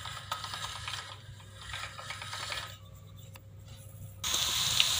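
Hand-cranked pasta-roller machine turning with small clicks and rubbing as a sheet of kue bawang dough is fed through its rollers. About four seconds in, this gives way abruptly to a steady, louder sizzle of dough frying in hot oil.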